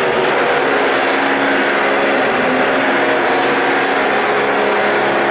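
Loud, steady machine-like noise with a faint hum under it.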